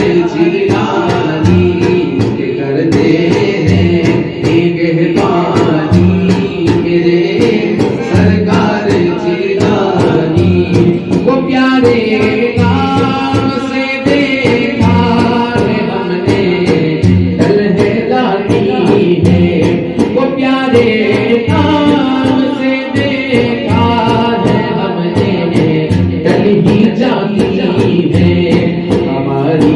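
A manqabat, a devotional Urdu song, sung by a male voice with other voices joining in, over a steady beat.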